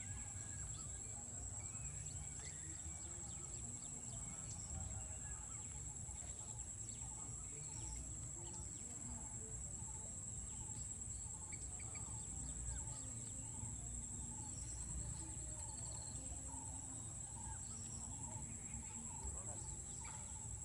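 Insects chirring in one steady, high-pitched drone, over a low rumble.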